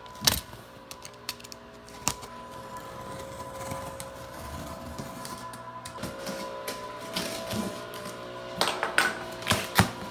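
A cardboard shipping box being handled and opened: a sharp knock about a quarter second in, another around two seconds, and a run of clicks and crackles near the end, over quiet background music with held notes.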